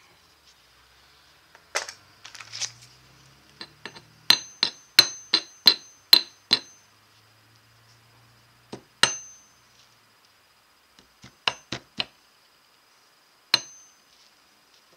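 Small jeweller's hammer tapping metal wire against a jewelry anvil: sharp metallic clinks, each with a brief high ring. They come in a quick run of about ten strokes a few seconds in, then a pair, then a short run and one last tap near the end.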